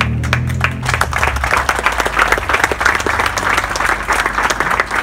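A small crowd applauding, the clapping starting suddenly and filling in within the first second, then running on as a dense, steady patter of hand claps.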